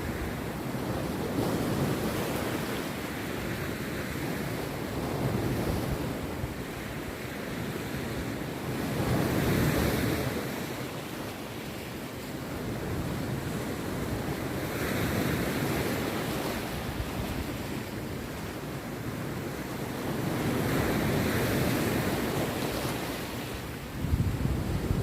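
Rough sea waves breaking on a beach, the surf swelling and easing every few seconds, with wind rumbling on the microphone that turns suddenly louder in the last second.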